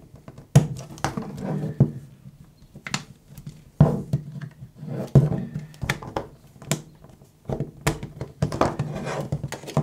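An opening tool prying around the edge of a Samsung Galaxy A14's clipped-in back cover, scraping along the frame. Sharp clicks come every second or so as the cover's side clips pop loose one by one.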